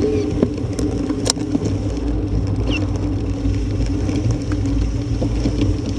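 Steady low rumble of wind and tyre noise picked up by a camera mounted on a moving road bicycle, with two sharp clicks about half a second and a second and a half in.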